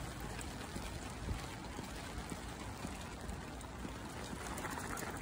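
Steady rain falling on wet paving, an even hiss.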